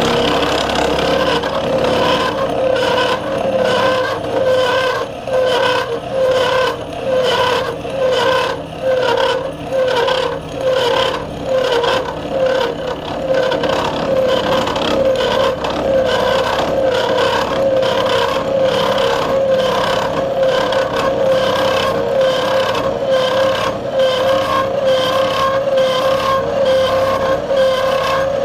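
A Bridgeport milling machine running in back gear while its disc cutter takes a cut, with a steady squeak. For the first half the squeak pulses at an even rhythm of about three beats every two seconds, then it runs steadier. The squeak comes from the back gears when running clockwise, and the owner is unsure of its cause.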